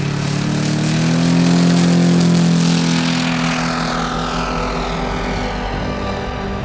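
The 120 cc Fiala FM120i2 engine of a large-scale RC Morane D-3801 model at takeoff power, swelling as the plane rolls past and lifts off. Its pitch then drops as the plane climbs away.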